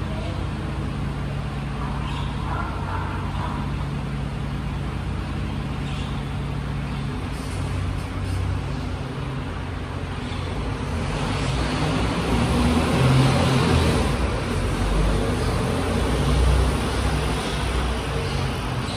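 Mercedes-Benz refuse truck's diesel engine idling steadily, then running louder and rougher from about ten seconds in as the truck pulls out and turns.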